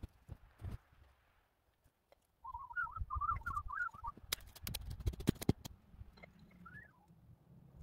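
Hatchet chopping and snapping off dead lower branches of a spruce: a quick series of sharp cracks and knocks about halfway through. Just before the cracks, a bird twitters in a rapid run of chirps, and a single short chirp comes near the end.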